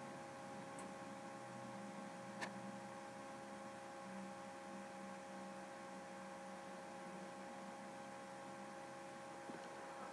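Faint steady electrical hum made of several fixed tones, with one small click about two and a half seconds in.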